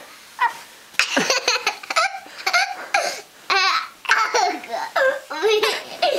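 Young children laughing in a run of short, high-pitched bursts, starting about a second in.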